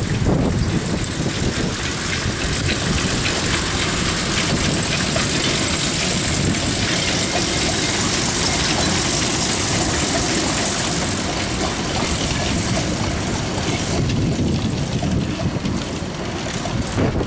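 Narrow-gauge train passing close by: a W. G. Bagnell 0-4-0ST saddle-tank steam locomotive working past with a small diesel-hydraulic loco coupled to it, then its carriages rolling by on the rails.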